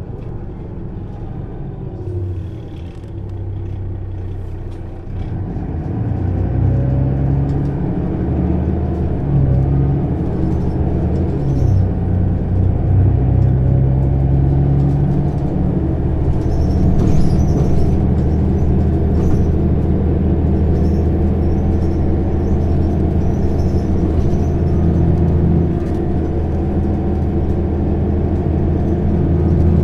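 Mercedes-Benz O 530 Citaro bus engine and ZF automatic gearbox heard from inside the passenger cabin. The engine gets louder about five seconds in, its note stepping up and down for several seconds as the bus accelerates, then runs steadily, with small interior rattles.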